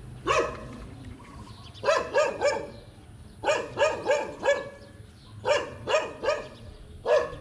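A dog barking repeatedly in short runs of a few barks with pauses between them.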